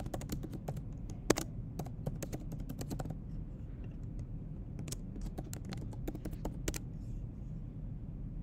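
Typing on a computer keyboard: a quick run of keystrokes, a pause of about a second and a half, then more scattered keystrokes, over a low steady hum.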